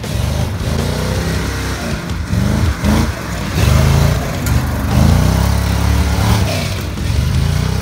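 The 5.7-litre V8 of a 1982 Jeep CJ7 revving up and falling back several times under throttle.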